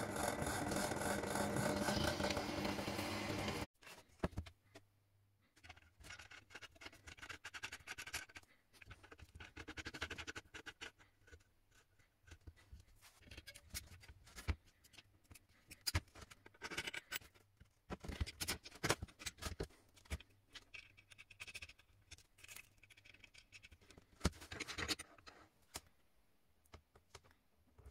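A power tool runs steadily, then cuts off suddenly about four seconds in. After that come intermittent scratching, scraping and light knocks from beech-wood vise parts being worked and handled by hand.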